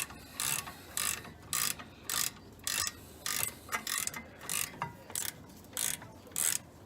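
Socket ratchet tightening a rear brake caliper bolt with short back-and-forth strokes. The pawl makes a quick rattle of clicks on each return swing, about a dozen strokes at roughly two a second.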